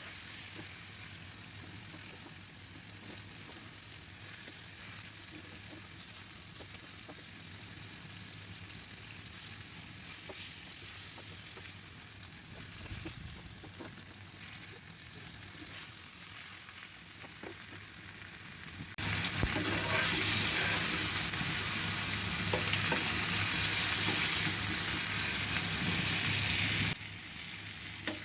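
Marinated chicken pieces sizzling steadily in hot oil in a frying pan, with occasional light knocks. About two-thirds through, the sizzling becomes much louder for several seconds, starting and stopping abruptly.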